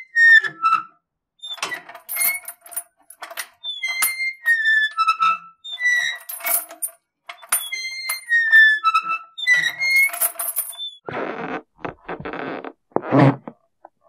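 Squeak and creak sound effects: a run of high-pitched squeaks with short falling pitch glides and light clicks, repeating in a similar pattern about every four seconds. From about eleven seconds in, two or three longer, coarse creaks.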